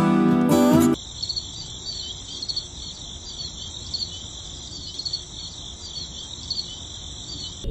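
A steady, high-pitched chorus of crickets chirping, after about a second of acoustic guitar music that cuts off abruptly.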